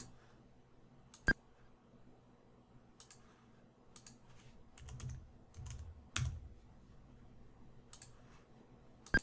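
Faint, scattered clicks of a computer keyboard and mouse: a single click or a few keystrokes at a time, spaced irregularly and most frequent around the middle.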